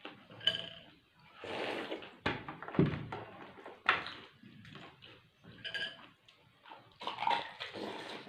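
Pani puri being eaten in quick mouthfuls: crisp puri shells crunching and the spiced water slurped, coming as a string of separate noisy bursts with a few sharp cracks.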